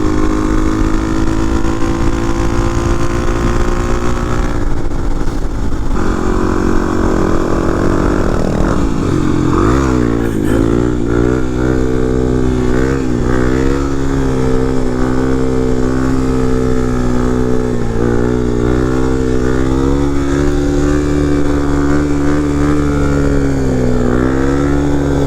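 Single-cylinder dual-sport dirt bike engine running under way. Its pitch holds steady, breaks off about six seconds in, swoops up and down around the ten-second mark through a gear change, then settles into steady cruising with small rises and dips.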